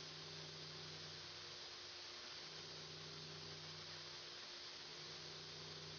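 Faint steady hum and hiss from a CNC mill-turn center at work, with a low tone that cuts in and out every couple of seconds.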